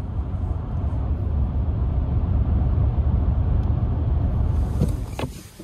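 Steady low rumble of road and engine noise heard inside a moving vehicle's cabin. It drops off suddenly about five seconds in, with a couple of faint clicks.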